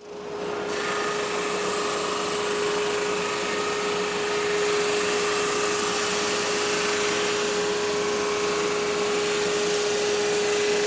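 Drum sander running steadily, sanding a small wooden piece fed through on a sled: a constant mid-pitched hum with a broad hiss of abrasive on wood.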